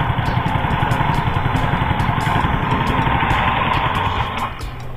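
Automatic motor-scooter engine driving a small fishing boat, running steadily, then easing off to a lower, quieter note near the end.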